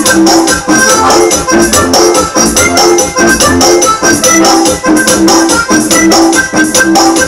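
Loud dance music led by an electronic keyboard, over a fast, even shaker beat.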